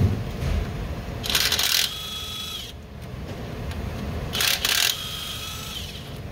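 A hand-held power tool run in two short bursts, each followed by a thin whine that fades out over about a second, over a low steady background rumble.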